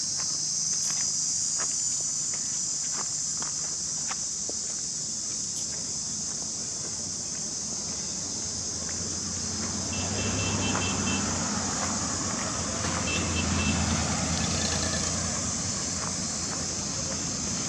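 Steady high-pitched drone of insects outdoors, with scattered light clicks during the first few seconds. About ten seconds in, the low rumble of a motor vehicle rises, loudest around two-thirds through, then fades.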